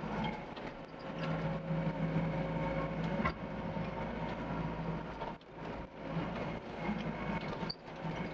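Doosan DX55 mini excavator's diesel engine and hydraulics running under load, the engine note swelling and easing as the machine works, with a single sharp knock about three seconds in.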